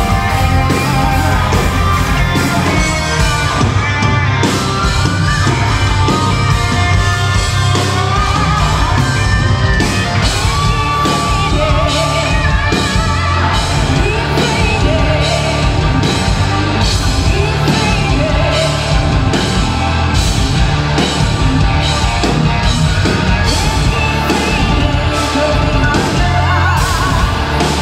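Symphonic metal band playing live, with a woman singing lead over distorted guitars and a steady drum beat, heard from the audience in a concert hall.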